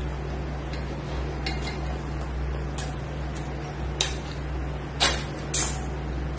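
Close-miked sounds of a person eating rice and curry by hand: a handful of short, sharp mouth smacks while chewing, the loudest about five seconds in, over a steady low hum.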